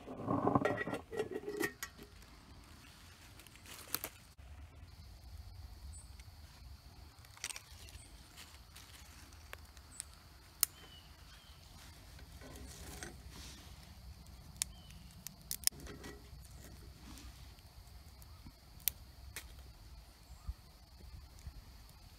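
Small twig fire in a titanium firebox being tended: a brief clatter of sticks and metal at the start, then the wood crackling with sharp, scattered pops.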